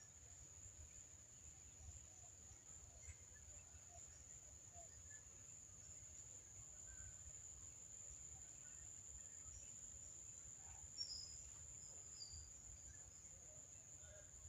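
Faint, steady high-pitched insect drone over a low rumble, with a couple of short faint chirps about eleven seconds in.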